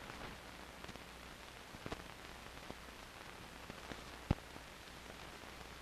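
Faint hiss and low hum of an old 16mm film soundtrack, with scattered clicks and pops; the sharpest pop comes about four seconds in.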